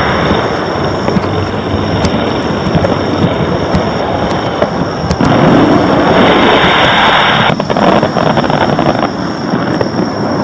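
Fireworks display: aerial shells bursting close together, a dense continuous barrage of overlapping bangs and crackles that grows louder again about halfway through.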